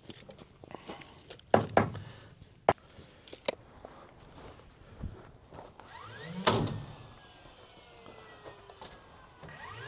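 Several sharp knocks and thuds, with a louder bang about six and a half seconds in that rings on briefly.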